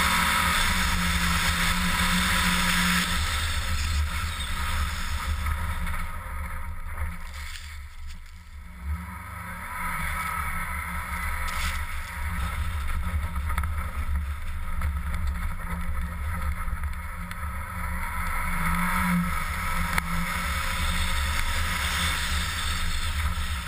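Mitsubishi Lancer Ralliart driving on a snowy ice road, heard from a camera mounted on the outside of the car: engine note with road and wind hiss. The engine eases off about six seconds in, is quietest near eight seconds, then pulls again.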